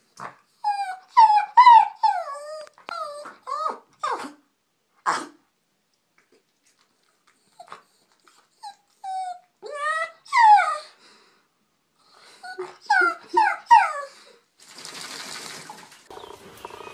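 Wet collie-type dog whining and yowling during a bath, in three bouts of short, wavering calls that slide up and down in pitch, with pauses between them. A brief hiss follows near the end.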